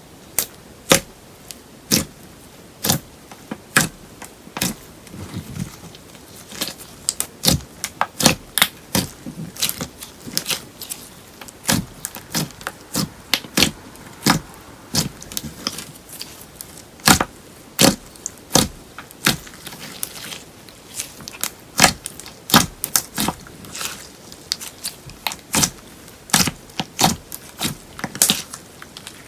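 Slime mixed with paper clay being kneaded and pressed by hand, giving a stream of sharp, irregular pops and clicks, several a second.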